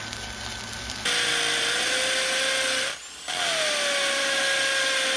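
Cordless drill bearing down at a steel post's base plate on a concrete floor: the motor starts about a second in and runs at a steady pitch, stops briefly near the middle, then starts again and runs steadily on. In the first second there is quieter crackle from arc welding.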